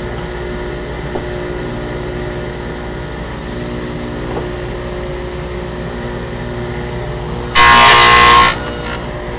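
Table saw with a 3/4-inch dado blade running with a steady hum. About seven and a half seconds in, the blade cuts through the board, much louder for about a second before falling back to the hum.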